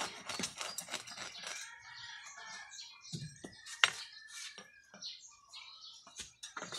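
Hacksaw rasping through a water buffalo's horn in quick strokes for about the first second and a half, then stopping. After that, bird calls, with one sharp click about four seconds in.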